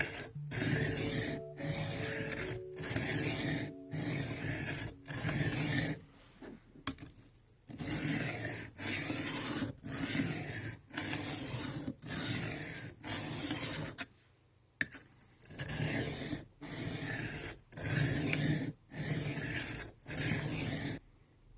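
Knife blade being stroked across an 800-grit diamond sharpening plate, a scratchy rasp on each pass at roughly one stroke a second, in three runs with two short pauses. The plate is new and being broken in.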